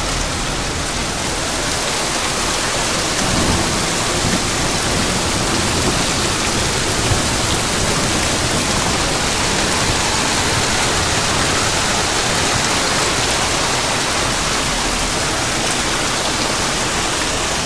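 Heavy downpour of rain mixed with hail pelting corrugated metal roofs and garden foliage: a steady, dense hiss that does not let up.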